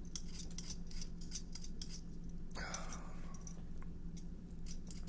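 Potatoes being peeled by hand: a run of short scraping strokes of the blade across the skin, with one longer scrape about halfway through, over a steady low hum.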